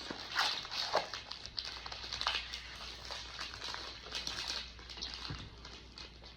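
Trading-card booster packaging crinkling and rustling in the hands as it is opened, with sharp crackles about half a second, one second and two seconds in.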